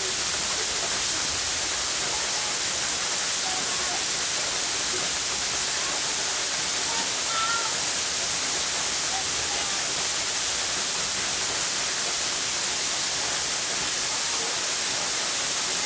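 Waterfall rushing with a steady, unbroken hiss of falling water.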